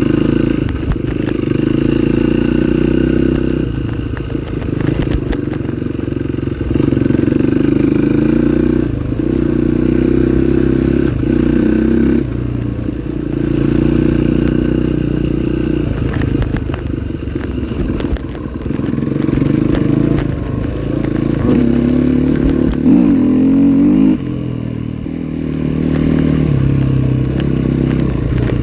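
Trail motorcycle engine running under changing throttle, its revs rising and falling every few seconds.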